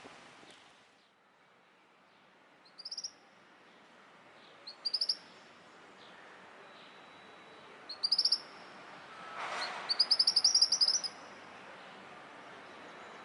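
A small bird singing in short bursts of quick, high chirps: four phrases, the last a longer trill of about ten notes. A brief rushing noise comes just before the last phrase.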